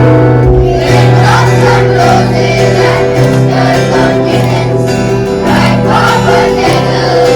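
Music: a guitar with singing voices.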